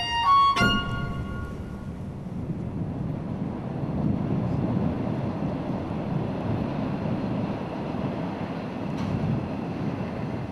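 A train running along an elevated line: a steady low rumble that swells about four seconds in and eases slightly near the end. The last notes of a bowed-string music cue die away in the first second or so.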